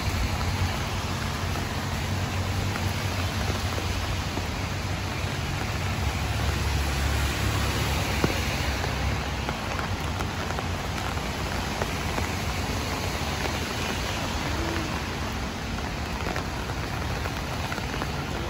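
Steady rain falling and splashing on hard ground, with a low rumble underneath and one sharp click about eight seconds in.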